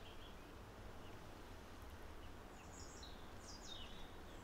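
Quiet outdoor ambience: faint, short bird chirps, clustered about three seconds in, over a low steady background rumble.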